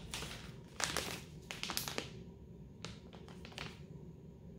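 Clear plastic sleeve around a set of makeup brushes crinkling as it is handled, an irregular run of crackles that dies down near the end.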